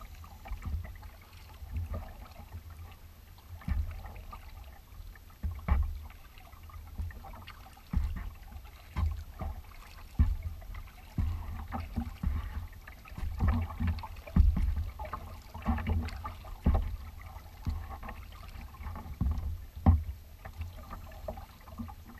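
Kayak paddling on calm water: paddle blades dip and splash at an uneven pace, with water slapping the hull in short low thuds every second or so.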